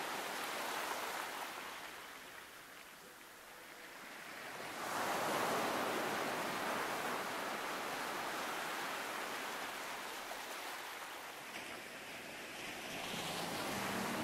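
Rushing sea and wind noise, a steady hiss that dips for a couple of seconds early on and swells again about five seconds in.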